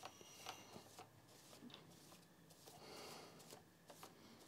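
Faint dry brushing as a soft-bristled brush sweeps dust off the Commodore PET keyboard's circuit board, with a few light clicks of small plastic key parts.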